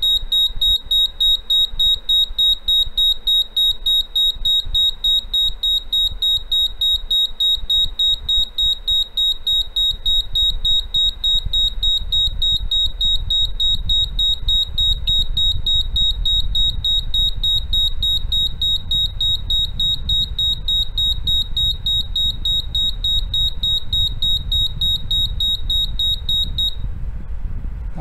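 A gas leak detector's built-in alarm buzzer beeps rapidly at a high pitch, set off by test gas in an operation test. It stops about 27 seconds in as the detector resets.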